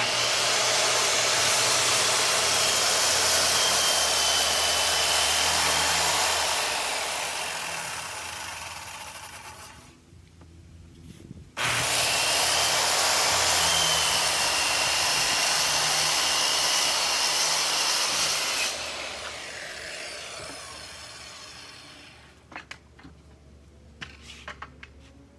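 Corded circular saw cutting plywood, run twice: it starts with a loud whine, cuts for about six seconds and dies away over a few seconds, then starts again after a short pause, cuts for about seven seconds and dies away. A few light clicks and knocks near the end.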